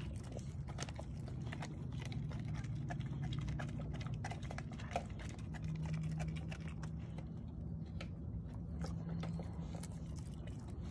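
A dog gnawing on a knotted rawhide bone held in a hand: irregular crunching and clicking of teeth on the chew, over a low steady hum.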